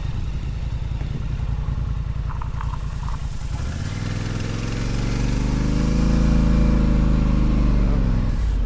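Four-wheeler (ATV) engine running under way. About three and a half seconds in it revs up and gets louder, holds, then eases back off near the end.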